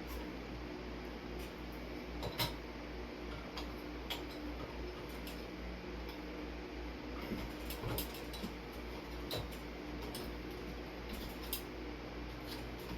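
Scattered small clicks and taps from hands working the wire connections of a ceiling fan as it is disconnected, over the steady hum of a running electric fan. The sharpest click comes about two seconds in.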